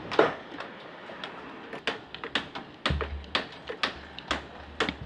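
A run of sharp, irregular knocks and taps, about two a second, with a low rumble coming in about three seconds in.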